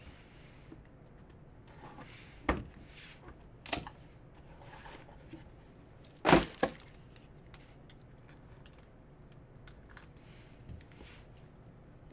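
Cardboard trading-card box being handled and opened: a few sharp knocks and scrapes of cardboard, the loudest about six seconds in, with faint rustling between.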